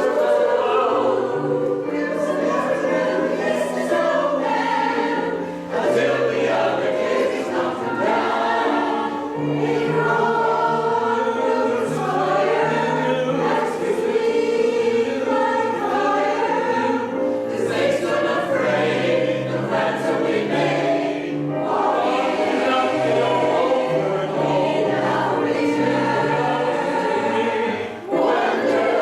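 A choir singing in parts, with held chords over a low line that steps from note to note, in a medley of sleigh-bell Christmas songs.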